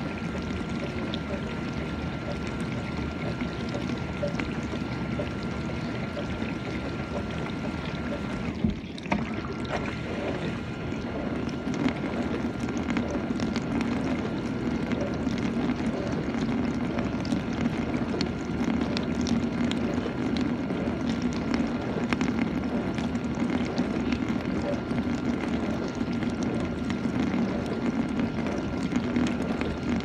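GE dishwasher running through its cycle: water spraying and sloshing inside the tub, with a faint steady whine. About nine seconds in there is a brief break with a click, after which the washing runs a little louder.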